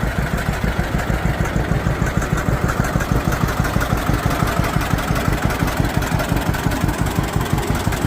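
1948 John Deere Model A's two-cylinder engine idling with an even, steady putt-putt beat.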